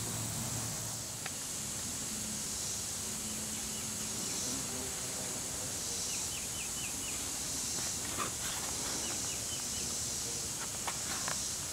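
Outdoor ambience of insects droning steadily at a high pitch, with short runs of bird chirps about six and nine seconds in and a few light clicks near the end.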